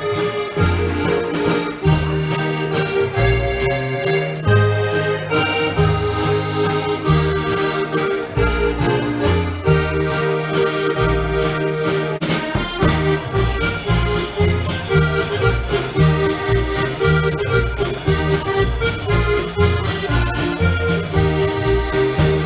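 Live polka band playing: accordion carrying the melody over a drum kit and strummed acoustic guitar, with a steady, bouncing beat and low notes moving on the beat.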